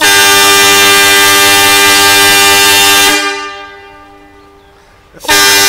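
A passenger train's multi-note air horn, very loud: one long blast of about three seconds that fades away, then a second blast starting near the end. It is the warning for the grade crossing as the train approaches.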